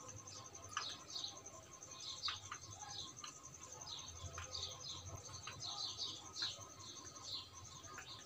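Small birds chirping over and over, short falling chirps over a steady, fast, high-pitched pulsing, with a few soft clicks.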